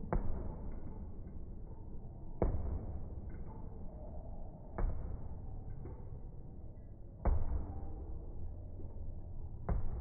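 Heavy punching bag struck by gloved fists: five sharp thuds about two and a half seconds apart over a low background rumble.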